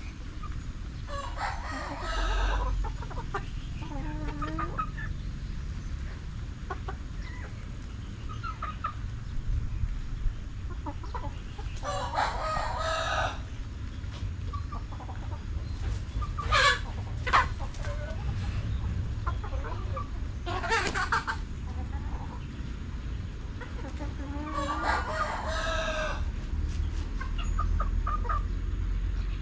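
Chickens clucking, with roosters crowing several times.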